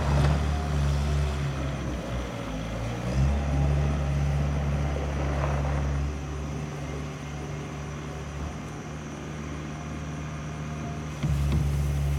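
Bobcat S185 skid steer's diesel engine running. Its note dips briefly about two seconds in and drops lower for the second half, then rises again sharply near the end.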